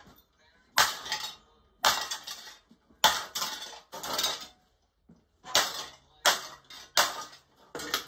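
Smashing an HPM ceiling fan: a golf club and a stamping shoe strike its motor housing and bent blades. About eight sharp, irregularly spaced hits, each followed by a short metallic clatter.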